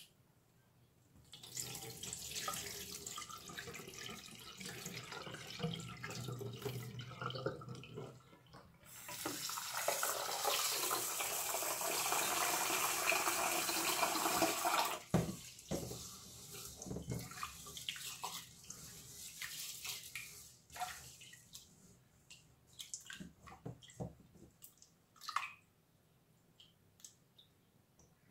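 Raw rice being washed by hand in a metal pot in a stainless steel sink: water swished through the grains, then the tap runs into the pot for about six seconds and stops suddenly, followed by scattered splashes and drips as the rinse water is poured off.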